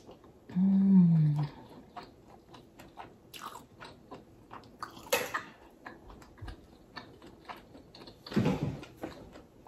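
Close-up eating sounds of a mussel being eaten: a falling 'mmm' hum of enjoyment about half a second in, then soft mouth clicks, chewing and lip smacks, with a short louder breathy rush near the end.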